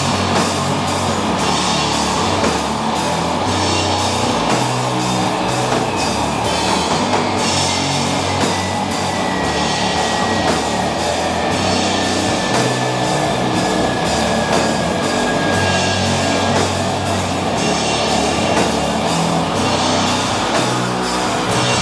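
Doom metal band playing live: heavy distorted guitar and bass holding slow low notes under drums, with cymbals struck at a steady pace.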